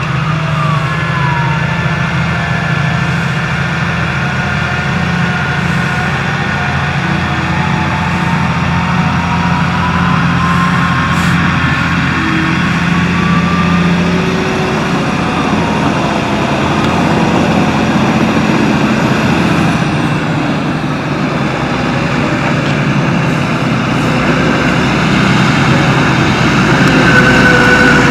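New Holland T7.230 tractor's six-cylinder diesel engine running steadily under load while it pulls a loaded manure spreader, with a whine that glides up and down in pitch over the engine note. It gets louder near the end as the tractor comes close.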